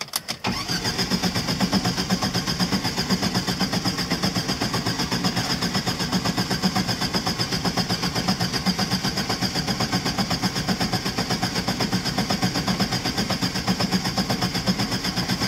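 Starter motor cranking a Lada estate's engine in an even, rapid rhythm with a steady high whine, for about fifteen seconds without it firing. The car has stood unused for a couple of weeks.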